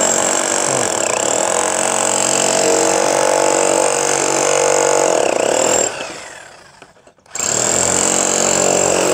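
Bosch GSH 500 electric demolition hammer running and hammering into a concrete joist, a loud steady motor and hammer din. It winds down about six seconds in and starts again a second later. The hammer mechanism, whose faulty factory part was replaced, is working normally.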